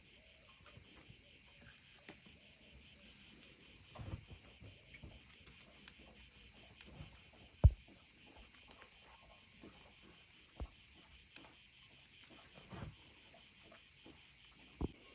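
A steady chorus of crickets chirping. A few short knocks sound over it, the sharpest about halfway through.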